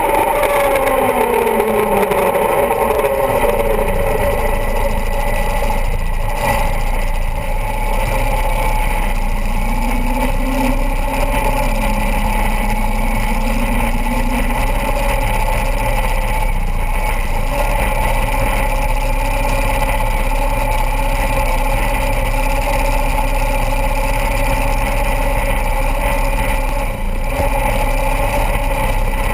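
Top Alcohol dragster engine running steadily after its revs fall away at the start, holding a constant pitch.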